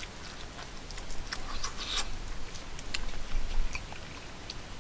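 A person eating curry and rice with a wooden spoon: soft scattered clicks and scrapes of the spoon against a wooden plate, with chewing. A brief low rumble comes a little past three seconds in.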